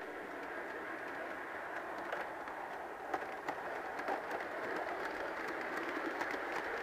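Piko V60 G-scale model diesel locomotive and its freight wagons running along the garden track: a steady rolling rumble with scattered faint clicks, growing slightly louder as it passes.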